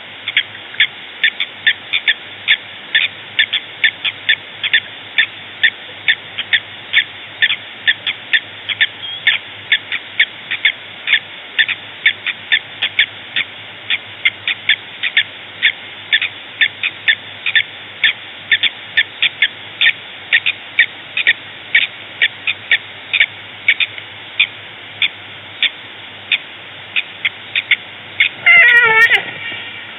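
An animal calling in a steady run of short, high chirps, about two or three a second. Near the end a louder call with several pitches slides downward.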